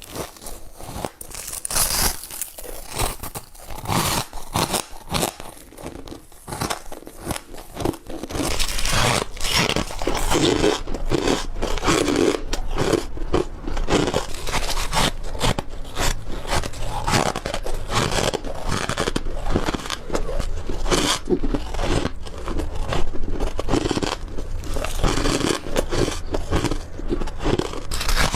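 Ice being bitten and chewed close up: separate sharp crunching bites at first, then from about a third of the way in, louder and almost continuous crunching as the mouthful is chewed.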